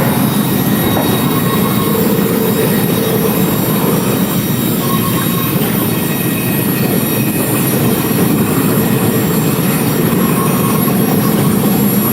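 Two-stroke chainsaw running steadily at full throttle, as when cutting through a trunk.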